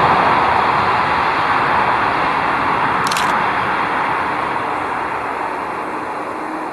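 Road traffic noise from a car passing at a distance, slowly fading away. About three seconds in, a camera shutter fires one short burst of clicks.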